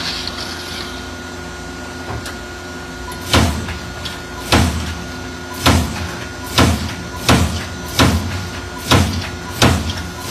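Amada AE-2510NT CNC turret punch hitting sheet metal: a steady machine hum. About three seconds in, a run of sharp punch strikes begins, eight in all, roughly one a second.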